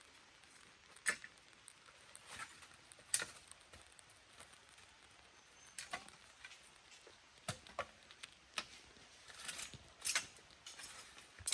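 Irregular light knocks, clicks and short rustles of sticks and leaves being handled, with the sharpest clacks about one and three seconds in.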